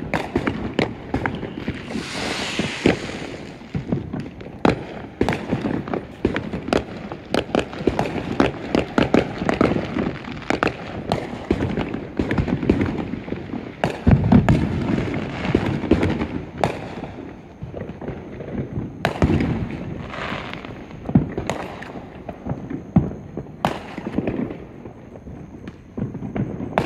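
Neighbourhood fireworks going off: a dense run of sharp cracks and bangs throughout. There is a hiss about two seconds in and a heavier, deeper booming stretch about halfway through.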